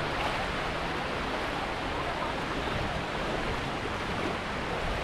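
Small Lake Ontario waves washing in over the sandy shallows around wading feet, mixed with wind blowing on the microphone: a steady rushing noise with no pauses.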